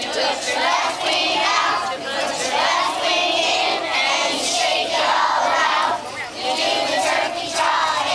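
A group of young children singing together in short phrases, with a brief lull about six seconds in.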